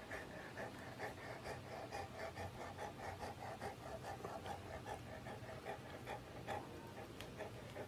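Golden retriever puppy panting faintly through its open mouth, quick even breaths about four a second, while its cheeks are rubbed.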